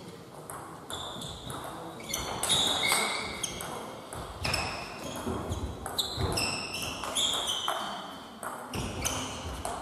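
Table tennis balls striking tables and bats: a string of short, sharp pings at an uneven pace, over a low murmur of voices in a large hall.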